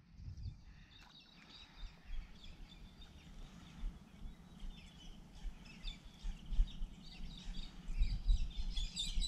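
Birds chirping and calling faintly in the background over a low, uneven outdoor rumble, busier near the end.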